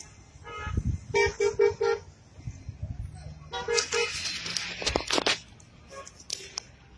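Vehicle horns honking in short toots: a quick run of four beeps about a second in and two more just before four seconds, with hissy noise and low bumps between them.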